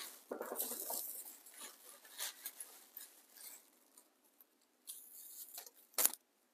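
Dry raffia strands rustling softly as they are pulled apart by hand, in scattered short bursts, with one sharp tap about six seconds in.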